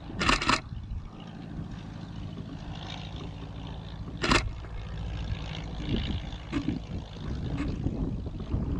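Steady low engine drone of a distant light aircraft passing overhead, growing a little louder in the second half. Sharp camera-shutter clicks come over it: a quick burst of about three near the start and a single click about four seconds in.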